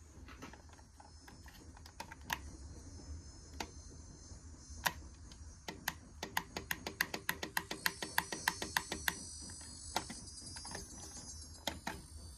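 Clicks of the push buttons on a water filter's digital control valve head being pressed to set its clock: a few single presses, then a fast run of about six presses a second for some three seconds, then a few more single presses.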